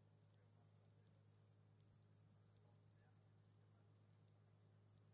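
Near silence, with faint crickets chirping in a fast steady trill and a low hum underneath.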